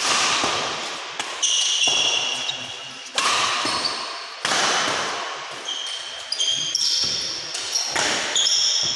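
Badminton rally: rackets striking the shuttlecock with sharp cracks about every second or so, each echoing through a large hall, with short high squeaks of sneakers on the court floor between hits.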